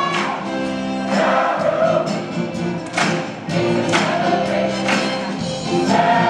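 Large group of voices singing together over pop-funk music with a steady beat.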